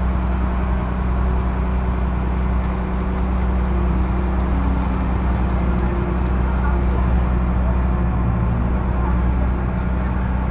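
Kempang motorboat's engine running steadily, a constant low drone with a rushing noise over it.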